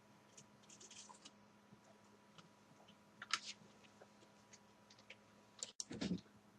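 Small screwdriver and tiny screws clicking and ticking against a laptop's chassis as the screws are driven in, in scattered faint clicks, with a sharper click about three seconds in and a soft knock near the end.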